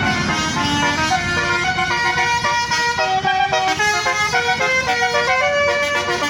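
Basuri 'telolet' multi-tone horn playing a quick melody, its notes stepping up and down several times a second, over a steady low rumble.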